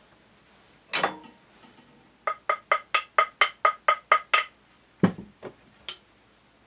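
A run of about ten quick, light hammer taps on metal shotgun parts, ringing slightly, at about five a second, driving a part on the shotgun's front end into place. Single knocks come before and after the run, the one after it the loudest.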